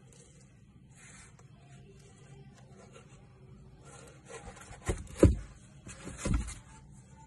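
Gloved hands handling a metal ship's clock: faint rubbing, then about five seconds in a few dull thumps and rubs, the second one the loudest.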